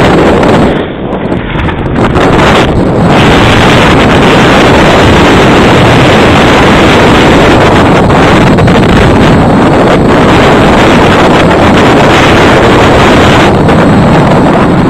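Strong wind buffeting the microphone, loud and nearly constant, aboard a J/24 sailboat beating upwind in about 20 knots of wind. It eases briefly about a second in.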